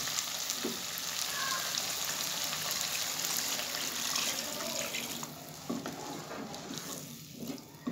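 Water poured into a hot pot of fried meat and potatoes, splashing and hissing on the hot masala; the pouring stops about five seconds in and the pot settles to a quieter bubbling, with a few faint knocks.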